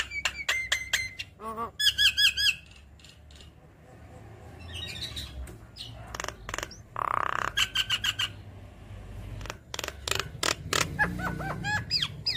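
Javan myna singing: a varied run of sharp clicks and short whistled chirps, broken by a harsh, rasping squawk about seven seconds in.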